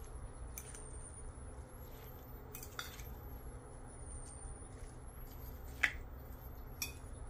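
A metal fork tossing shredded cabbage salad in a ceramic bowl, with a few light clicks of the fork against the bowl; the sharpest comes about six seconds in.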